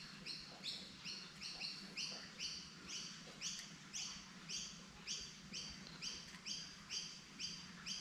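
A bird chirping over and over at an even pace, about two to three short high chirps a second, each dropping slightly in pitch, over a faint low hum.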